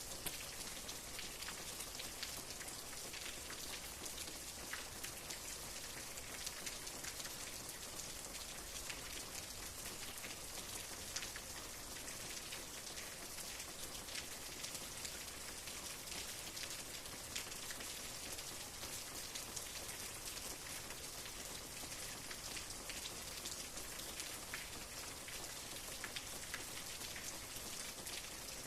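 Steady rain falling, a constant hiss of rain with many small drop ticks scattered through it.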